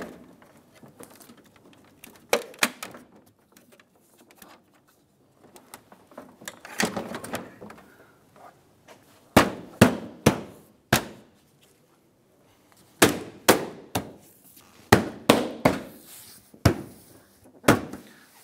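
Plastic front bumper cover of an Acura MDX being knocked into place with a gloved fist: a series of short, sharp thunks, a few at first, then in quick groups from about nine seconds in.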